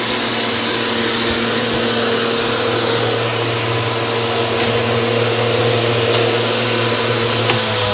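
Vacuum cleaner running steadily: a loud rushing of air with a constant motor hum and whine under it.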